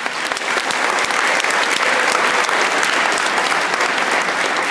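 Large audience of school students applauding, a dense loud clapping that builds over the first second and then holds steady.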